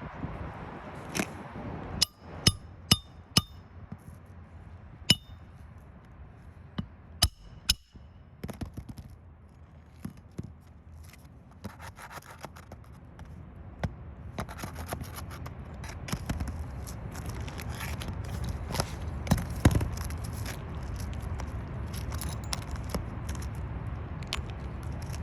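Hand work on a roof: a run of sharp metallic clicks and taps, each with a brief high ring, most of them in the first eight seconds, then scraping and rustling with scattered small taps over a rising low rumble.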